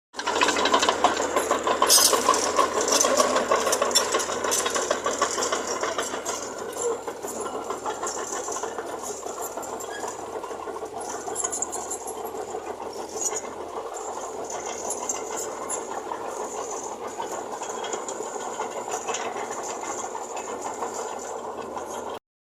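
Small Mitsubishi BD2J crawler bulldozer at work, its diesel engine running with a fast, steady mechanical clatter and rattle, louder for the first few seconds.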